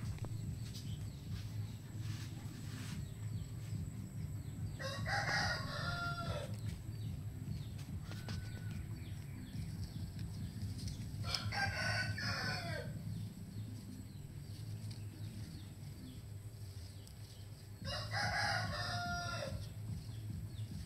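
Rooster crowing three times, about six seconds apart, each crow lasting about a second and a half, over a steady low background hum.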